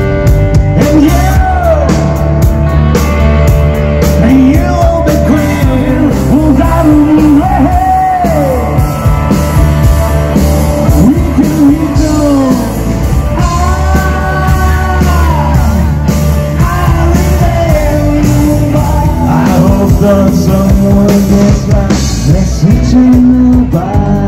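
Live rock band playing loud through a PA: electric guitar, bass guitar and drum kit, with a voice singing over them.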